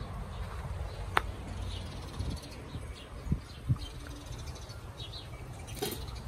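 Small birds chirping in short, scattered high calls over a steady low rumble. There is a sharp click about a second in and two dull thumps just after the three-second mark.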